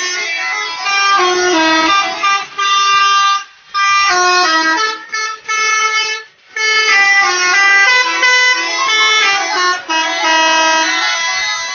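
Bus telolet horns, a set of multi-tone electric bus horns, playing a loud melodic tune in stepped notes, with two short breaks about three and a half and six seconds in.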